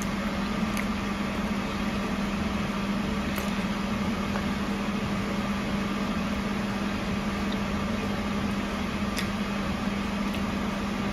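Steady low electrical hum of a running kitchen appliance, with an even drone and a few faint clicks.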